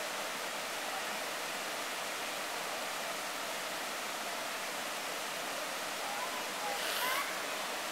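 Rocky Broad River rapids rushing over boulders: a steady, even rush of white water.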